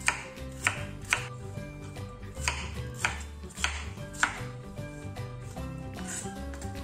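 Chef's knife chopping green bell pepper on a wooden cutting board: a series of sharp, irregular knife strikes against the board, over background music.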